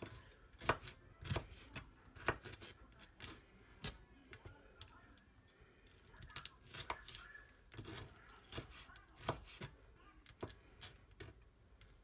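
Chef's knife dicing mini sweet peppers on a plastic cutting board: irregular sharp knocks of the blade against the board, about one or two a second, with a quieter pause around the middle.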